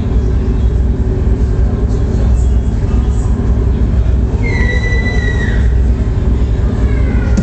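Loud electronic dance music played over a club sound system: a dense, heavy sub-bass with a high squealing synth tone that comes in about four and a half seconds in and bends downward.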